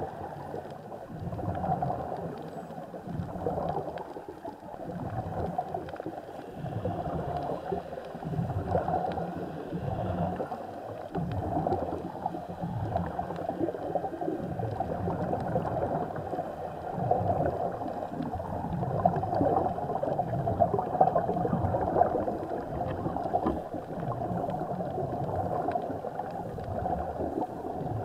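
Muffled underwater gurgling and bubbling of air, swelling and easing in repeated surges, as heard by an action camera submerged in the sea.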